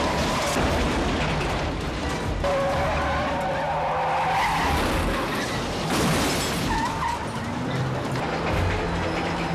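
Film car-chase soundtrack: car engines and skidding tyres mixed over background music.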